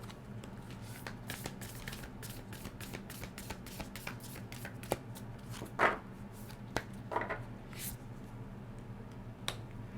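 A deck of oracle cards being shuffled by hand: a quick run of soft card flicks and riffles, dense for the first few seconds, then thinning to scattered clicks as a card is drawn.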